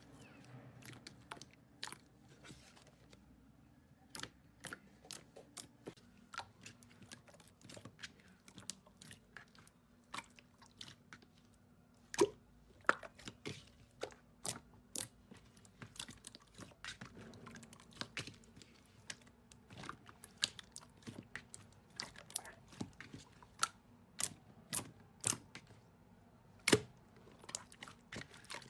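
Slime being squeezed, stretched and poked by hand, making irregular sharp clicks and pops, a few a second, with the loudest pops about twelve seconds in and near the end.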